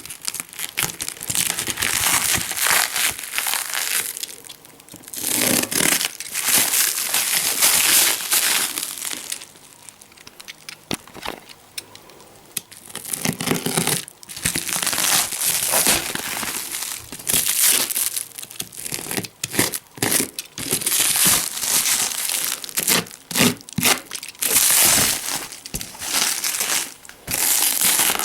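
A large cardboard box being opened by hand: tape tearing and cardboard crumpling and rustling in irregular bursts, with a quieter stretch about ten seconds in.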